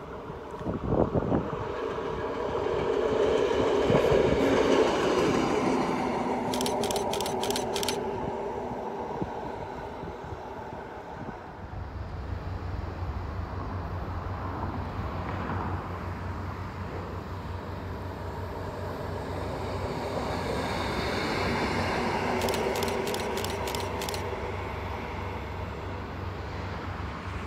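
Two Rotterdam Rail Feeding diesel locomotives pass one after the other. Each engine's drone swells and fades as it goes by, with a quick run of clicks near its loudest point. About twelve seconds in, the sound changes to a second locomotive with a steady low hum underneath.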